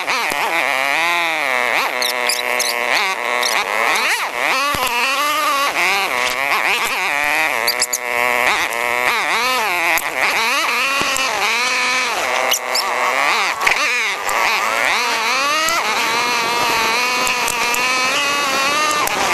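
ATV engines revving up and down on a trail ride, in sped-up footage, so the engine note sweeps up and falls back every second or so, with a few sharp knocks along the way.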